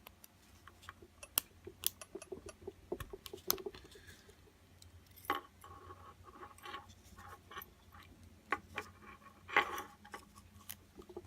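Small metal clicks, ticks and scrapes at irregular intervals, a few of them sharper, as a tool works at the C-clip on the back of an ABUS 34/55 padlock core to pry it off.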